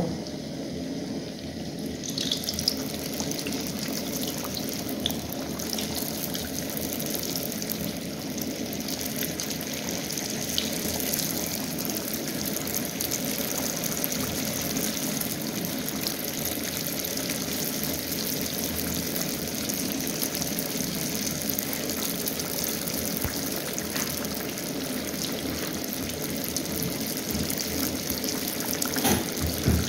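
Maandazi dough frying in hot oil: a steady sizzle and bubbling, with a few brief crackles.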